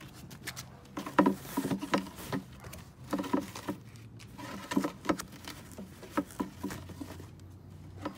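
Irregular soft taps, knocks and rustles from handling the animated vampire prop's cloth costume and metal base frame.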